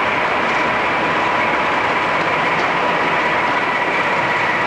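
BR Class 14 diesel-hydraulic locomotive D9551, with its Paxman V6 diesel engine, running slowly past at close range while running round its train. The sound is steady, with a thin steady whine over it.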